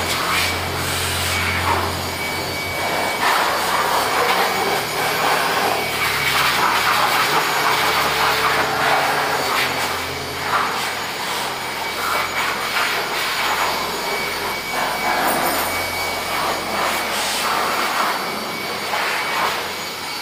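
Handheld electric blower running, its air noise swelling and dipping as the nozzle is swept over the dusty metal slats of a baggage carousel, with a low steady hum underneath.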